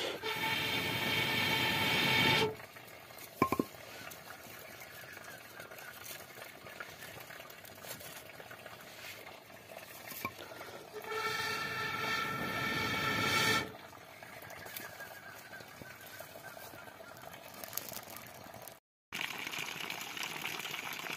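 Air blown through a bamboo blow pipe into the embers of a wood fire, sounding a steady horn-like note with overtones in two long blows. The first ends about two and a half seconds in, and the second runs from about eleven to nearly fourteen seconds. Between the blows there is a soft hiss.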